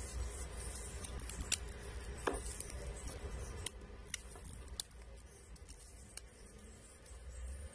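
Small sharp clicks and taps, about half a dozen spread over the first five seconds, as fingers press along the plastic edge of a Samsung A31 to seat the replacement screen, over a low steady hum.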